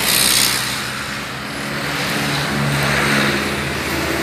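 Road traffic: a motor vehicle's engine running as it passes along the road, with a steady hum that swells and shifts in pitch midway.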